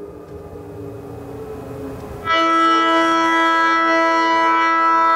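Federal Signal Modulator 6024 electronic siren speaker array: faint fading tones for about two seconds, then a loud, steady electronic chord of several held tones starts suddenly. The chord is the tone that leads into the siren's post-test voice message.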